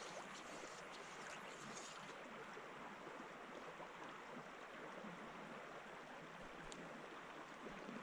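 A small river flowing: faint, steady rushing water, with one light tick late on.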